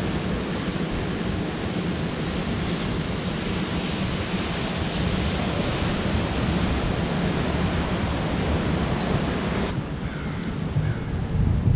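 Steady outdoor rush of ocean surf and wind, with a few faint high bird chirps over it. The background changes abruptly near the end to a duller wind rumble.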